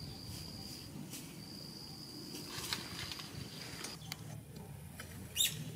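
An insect's steady high-pitched buzz, with short breaks, that stops about four seconds in, over a low rustle of leafy brush. A few sharp crackles of branches and leaves being handled, the loudest near the end.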